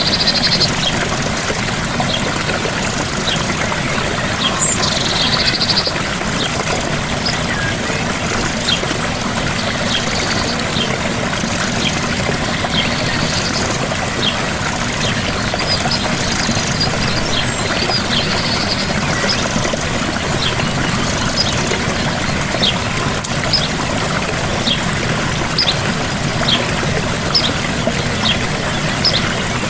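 Gentle waterfall: a steady rush of falling water, with short high-pitched ticks scattered through it.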